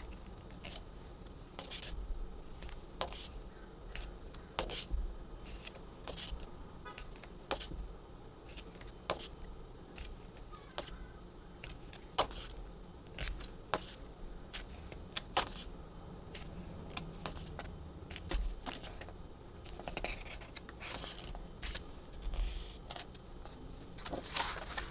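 Pages of a paper photobook being turned by hand: quiet paper rustles and short, sharp flicks every second or so.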